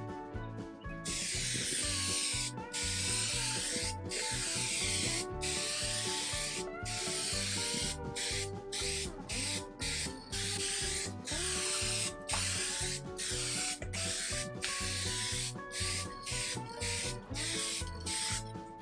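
Aerosol spray can hissing in repeated passes of primer, broken by short pauses, over background music with a steady bass beat.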